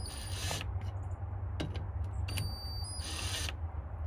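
Hand tools working the metal parts of a homemade valve spring compressor on a cylinder head: two short scraping bursts, one at the start and one about three seconds in, and a few light clicks between them, over a steady low hum.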